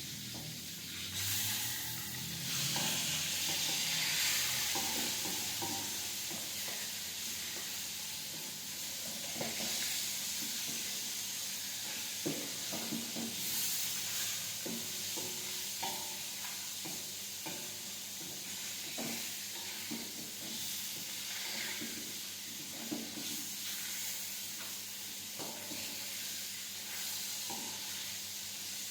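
Food sizzling in hot oil in a pan, the sizzle swelling louder in the first few seconds, with a utensil repeatedly clinking and scraping against the pan as it is stirred.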